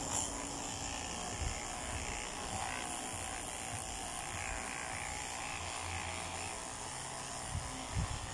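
Corded electric dog clippers running steadily as they shave a dog's coat, with a few soft low thumps.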